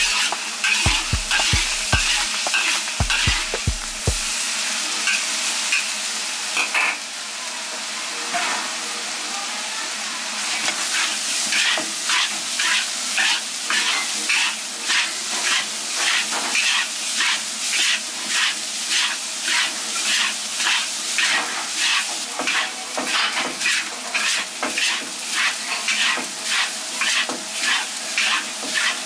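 Minced garlic sizzling in sesame oil in a wok, then chopped dried red chilies stir-fried in it with a metal ladle. From about ten seconds in, the ladle scrapes the wok in steady rhythmic strokes over the sizzle.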